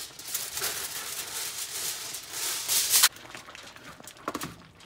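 Aluminium foil being handled and spread over a skillet, crinkling and rustling for about three seconds, then stopping abruptly, followed by a few faint taps.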